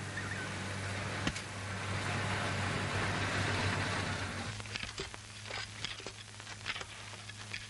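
A steady rushing noise over a low hum for about four and a half seconds, then irregular sharp chops and crunches of a blade hacking through jungle brush.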